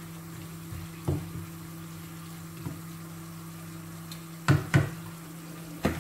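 Pot of meat-pie filling cooking on the stove with hot water just added, under a steady low hum. Several sharp knocks of a utensil on the pot: one about a second in, a louder pair just after four and a half seconds, and one near the end.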